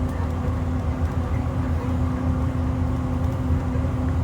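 Engine of a 2012 IC RE school bus, an International MaxxForce DT diesel, heard from inside the cabin, running steadily with a constant low hum.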